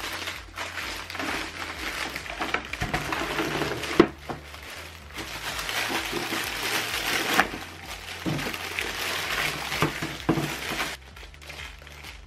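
Clear plastic wrapping film crinkling and rustling as the wrapped machine is handled, with a few sharp knocks, the sharpest about four seconds in.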